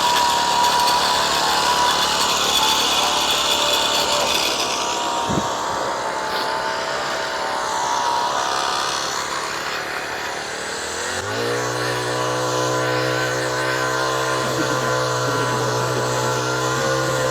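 Small Honda gas engine of a vibrating concrete power screed running. About two thirds of the way through it speeds up in a short rising glide, then holds a steady, lower-pitched drone.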